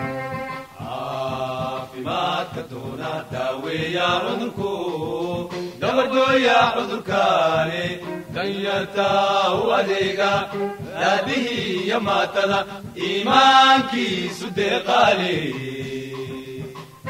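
Background music with a chanted vocal line.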